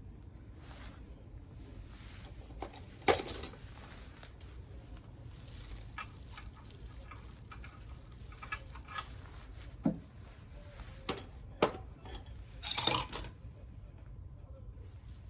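Metal hand tools and small engine parts clinking and knocking during scooter engine disassembly: a few sharp metallic knocks, the loudest about three seconds in, with quieter handling clicks between and a short clatter near the end.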